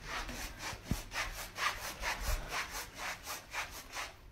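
A hand rubbing briskly back and forth over a soft surface: quick, even scratchy strokes, about four a second.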